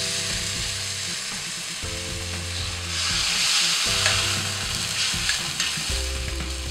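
Hot fried masala sizzling in a wok as puréed spinach is poured onto it and stirred in with a wooden spatula. A steady frying hiss runs throughout, swelling about three seconds in.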